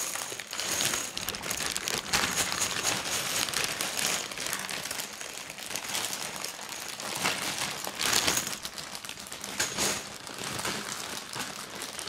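Clear plastic bag crinkling as it is shaken and tipped out, with small plastic K'nex pieces clicking and clattering onto a pile of parts on a wooden table.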